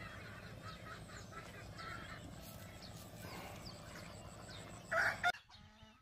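Farmyard chickens clucking and calling faintly, with a louder call about five seconds in; the sound then cuts off suddenly.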